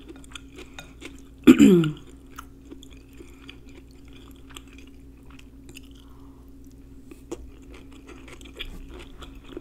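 Close-up chewing of shrimp and vegetable stir fry with rice, with many small wet mouth clicks over a faint steady hum. About a second and a half in, a brief appreciative "mmm" that falls in pitch.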